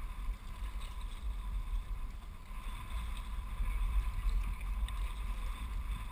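A kayak being paddled on calm water, the paddle and hull moving through the water, over a steady low rumble of wind on the microphone.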